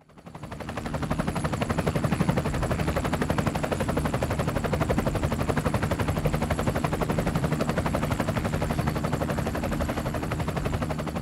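Helicopter rotor sound: a fast, steady chopping of rotor blades over a low engine hum, fading in over the first second.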